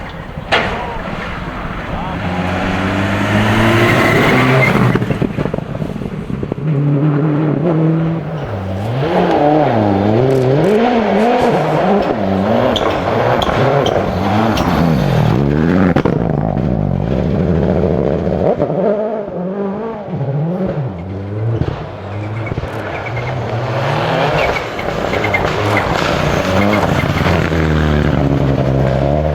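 Rally car engine revving hard on a stage, its pitch climbing and dropping again and again through gear changes and lifts off the throttle, with a sharp click about half a second in.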